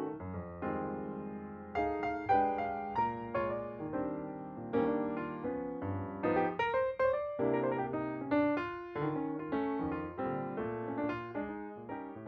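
Piano music playing, with chords and melody notes struck several times a second, each dying away.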